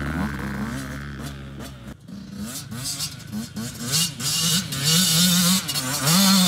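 Youth-sized Yamaha two-stroke motocross bike accelerating away over dirt; after a cut about two seconds in, its engine revs up and drops off again and again as the rider works through the gears, growing louder near the end.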